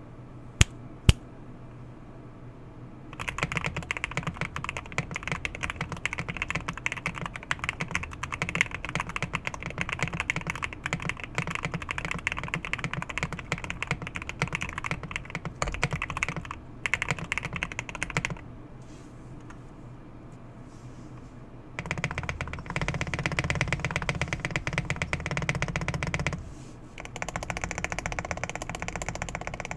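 Mechanical keyboard with Tangerine linear switches being typed on in fast, dense runs of keystrokes, with a pause of a few seconds in the middle. Two sharp, louder clicks come in the first second, before the typing starts.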